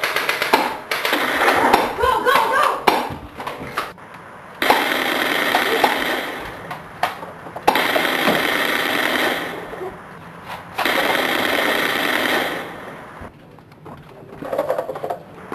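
Rapid automatic gunfire in several long bursts of one to two seconds each, starting and stopping abruptly, with short gaps between them.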